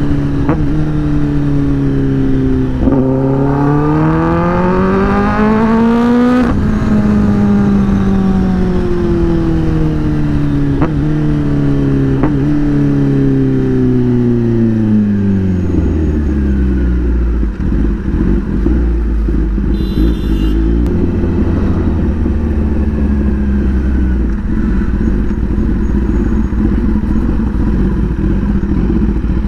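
2021 Kawasaki ZX-10R's inline-four through an SC-Project exhaust: the revs climb to a gear change about six seconds in, then fall steadily for about ten seconds as the bike slows, with a few sharp cracks. From about halfway it runs low and steady at slow speed.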